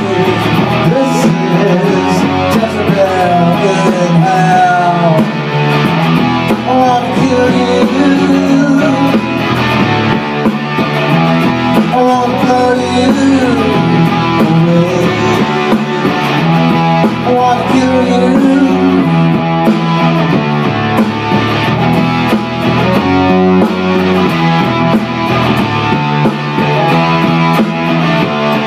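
A sunburst Les Paul-style electric guitar plays a rock part over a programmed bass and drum backing from a DigiTech Trio band-creator pedal.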